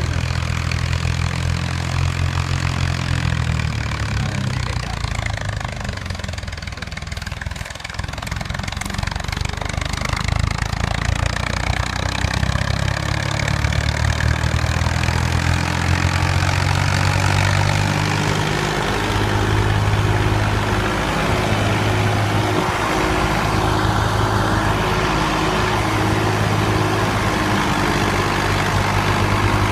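Fiat 480 tractor's diesel engine running at a steady speed while it powers a thresher, the machine noise and the engine's even hum mixed together.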